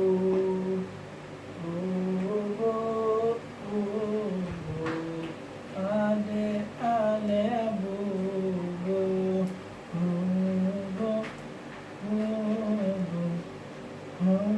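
A person humming a slow lullaby to get a fussy baby to sleep: long held low notes in short phrases, with brief breath pauses between them.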